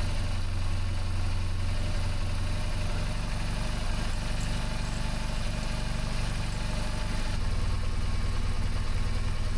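BMW R1200GS flat-twin boxer engine idling steadily while its throttle bodies are being synchronized. Its low note shifts slightly about seven seconds in.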